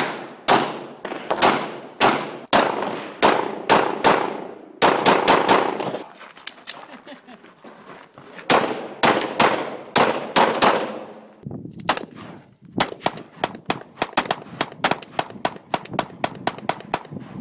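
Gunfire with echo: single shots about two a second, quick strings of several shots a third of the way in and again midway, then a faster run of sharper shots through the last third.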